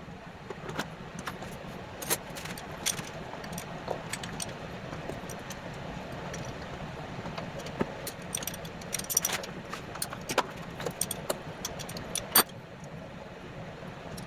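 Irregular light metallic clinks and taps of hand tools and engine parts being handled, over a steady low background hum.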